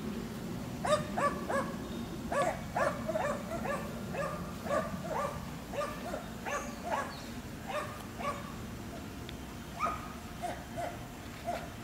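A dog barking repeatedly, many short barks in quick runs.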